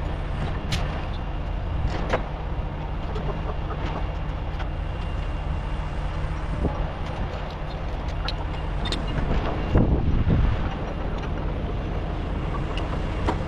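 Heavy diesel truck engine running steadily, with a few sharp knocks and a brief louder surge about ten seconds in.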